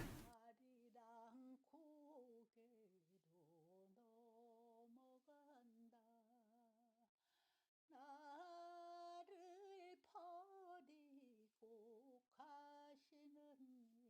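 Very faint singing voice carrying a slow, wavering melody with vibrato, barely above near silence, after a short click at the very start.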